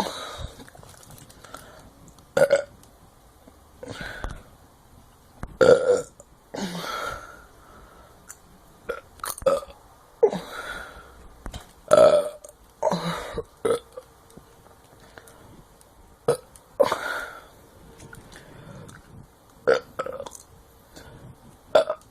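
A person burping over and over: about a dozen loud burps, some short and some long and drawn out, coming every one to three seconds.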